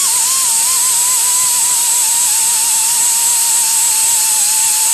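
Die grinder with a cut-off wheel grinding the end of a steel rivet flush against a steel plate: a steady loud hiss with a motor whine whose pitch wavers and dips as the dull disc is pressed into the work.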